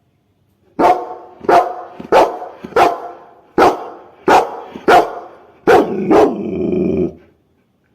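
A dog barking about nine times at a steady pace, roughly one bark every two-thirds of a second. The last bark runs on into a longer, lower rumbling sound for about a second.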